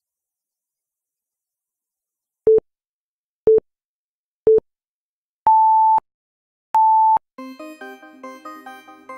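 Electronic countdown-timer beeps: three short low beeps a second apart, then two longer beeps an octave higher, marking the end of the answer-checking time. Light background music begins right after, near the end.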